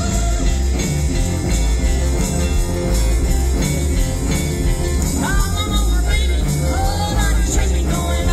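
Live rock and roll band playing an upbeat number on electric piano, electric guitars and drums, with a woman starting to sing about five seconds in.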